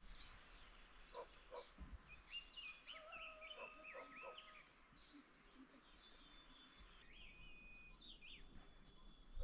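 Faint birdsong: several birds chirping and whistling, with quick rising and falling notes and a few longer held whistles, over a low background hiss.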